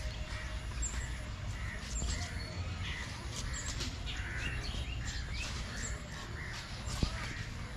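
Birds calling, with short cawing calls and chirps scattered throughout, and one sharp click about seven seconds in.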